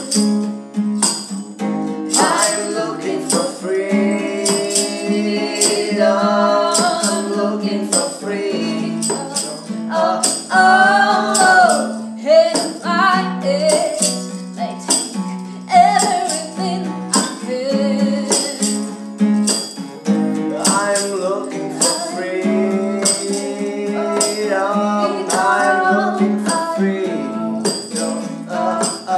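A woman and a man singing together, accompanied by a strummed acoustic guitar and a tambourine striking a steady beat about twice a second.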